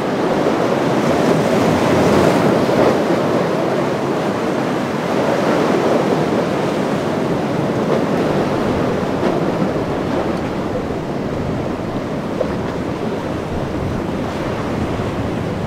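Rough surf breaking and rushing, with wind buffeting the microphone; a steady roar of noise that swells and eases with the sets of waves.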